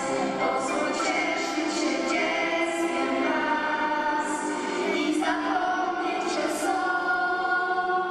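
Children's choir singing, with long held notes that change pitch every second or so.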